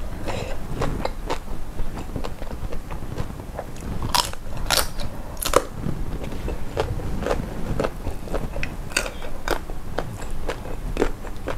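Close-miked chewing and crunching of shell-on prawns, crisp crackling bites throughout, the loudest crunches about four to five and a half seconds in.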